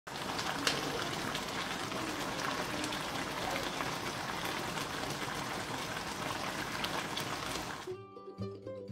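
Chicken hamonado simmering in a frying pan: the pineapple-soy sauce bubbling and sizzling steadily with scattered sharp pops. It cuts off about eight seconds in, and plucked-string music begins.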